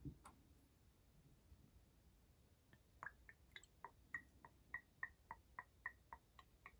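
Baijiu glugging out through the plastic pour insert of a bottle's neck into a small glass: a quick, even run of short gurgles, about three or four a second, starting about three seconds in.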